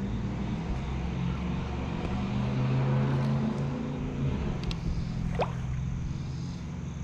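A low, steady engine drone, swelling about three seconds in and easing off after, with a brief rising squeak about five seconds in.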